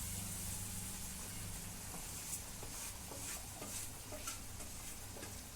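Faint hiss of a pan of simmering water as roasted semolina is tipped in, with a few soft light clicks and scrapes from about two seconds in.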